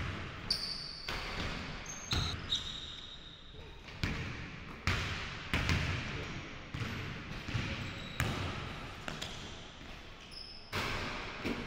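A basketball bouncing and thudding on a hardwood gym floor, the thumps ringing in the large hall, with short squeaks from sneakers several times.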